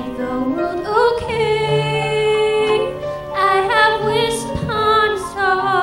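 A teenage girl soloist singing a slow ballad into a microphone, holding long notes with vibrato over a lower accompaniment.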